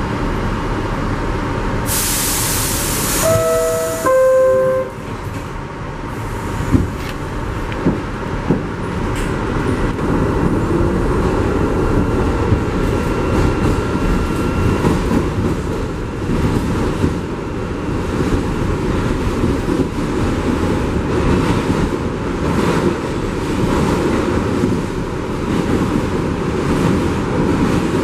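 New York City subway train at a station: a loud hiss of air, then the descending two-tone door chime, a few knocks as the doors shut, and the train pulling out and running with a steady rumble and a faint motor whine.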